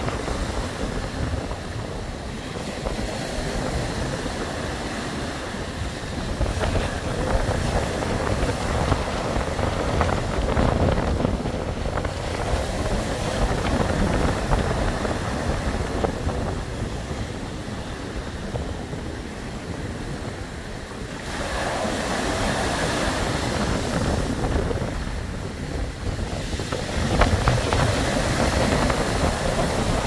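Surf breaking and washing up a beach of small round pebbles, swelling and easing every few seconds, with the loudest surges near the end. Wind rumbles on the microphone underneath.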